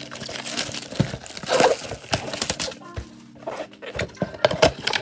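Plastic shrink wrap on a Bowman trading-card mega box crinkling and tearing as it is stripped off by hand, with irregular crackling and small knocks from handling the cardboard box.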